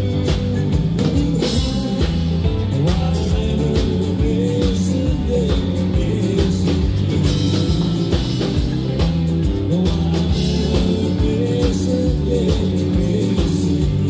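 Live country band playing, with electric guitar, bass guitar and drum kit keeping a steady beat.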